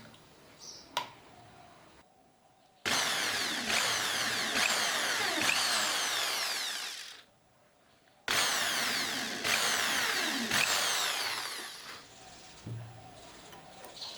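A power tool running in two bursts of about four seconds each, each starting abruptly and tailing off, with a short silence between.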